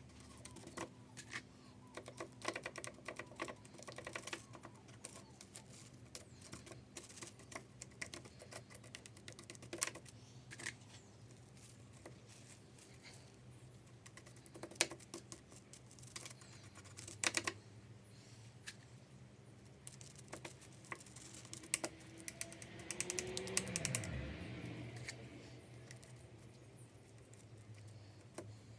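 Irregular light clicks and taps over a low steady hum, with a brief louder swell that falls in pitch a little after twenty seconds in.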